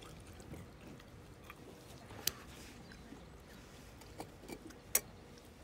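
A few light clicks and taps of things being handled on a camp table, the sharpest about two seconds in and near the end, over faint outdoor background.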